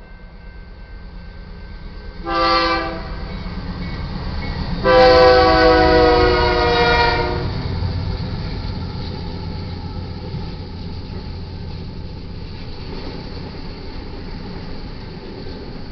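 A BNSF GE Dash 9-44CW diesel locomotive's air horn sounds the last short and long blasts of the grade-crossing signal. The long blast, the loudest sound, drops in pitch as the locomotive passes close by. Then comes the steady rumble of the lead locomotives and double-stack intermodal cars rolling past on the rails.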